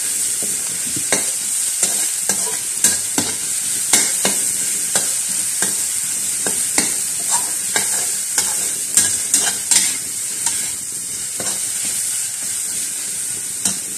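Lemongrass and pounded spice paste sizzling in hot oil in a steel wok, with a steady hiss and frequent irregular scrapes and taps of a metal spatula against the wok as it is stirred.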